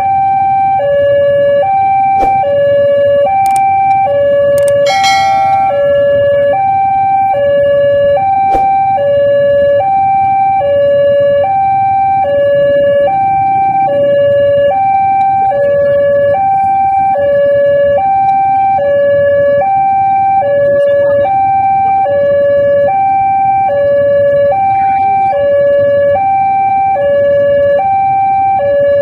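Railway level-crossing warning alarm sounding an endless two-tone electronic ding-dong, a higher and a lower note alternating about once a second, the signal that a train is approaching. Motorbike engines idle underneath, with a brief clatter about five seconds in.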